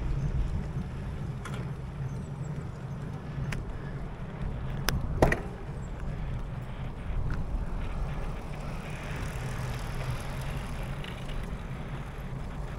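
Steady low rumble of wheels rolling on tarmac, with a few sharp clicks, the loudest about five seconds in.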